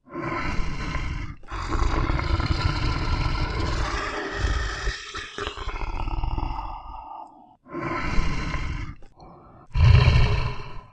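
Tiger roaring and growling. A short roar is followed by a long rumbling growl-roar of about five seconds. Then come three shorter roars, the last one the loudest.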